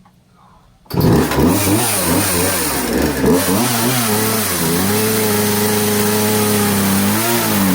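Four-wheeler (ATV) engine coming in loud about a second in, revving up and down at first, then running at a steady pitch with two brief dips in revs.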